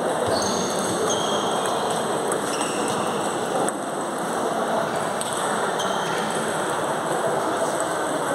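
Table tennis balls clicking off tables and paddles from many tables around a sports hall, a dense patter over a steady haze of hall noise. A few short high-pitched squeaks come in the first couple of seconds.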